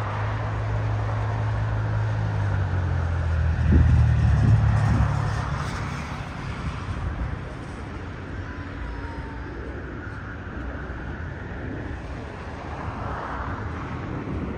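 Steady low rumble of airport and road traffic, with a hum that swells to its loudest about four seconds in and then eases to a lower, even background.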